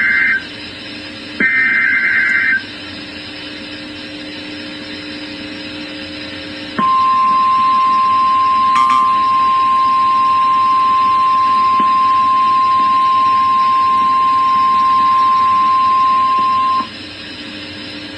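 NOAA Weather Radio emergency alert over radio hiss: the tail of one digital SAME header burst, then another full burst of buzzing data about a second and a half in. Several seconds of hiss with a low hum follow, then the steady 1050 Hz warning alarm tone sounds for about ten seconds, the signal of a warning-level alert.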